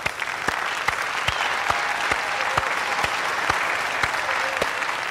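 Audience applauding steadily, a dense spread of many hands clapping.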